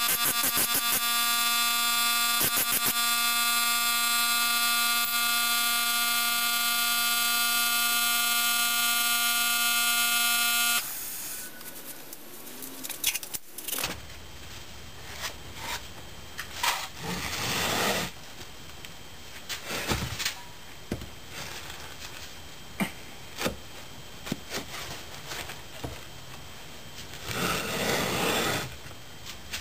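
Pneumatic air hammer used as a sand rammer, running with a loud steady pitched buzz as it packs green sand into a wooden molding flask, and stopping abruptly about eleven seconds in. After that come quieter knocks and scrapes of the wooden flask and a bottom board being handled, with a longer scraping rush near the end as the flask is tipped over.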